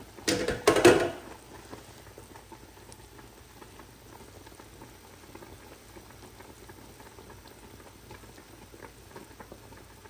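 A brief loud clatter just after the start, then pork knuckles simmering on low heat in curry broth in a large stainless steel pot: steady soft bubbling with small pops.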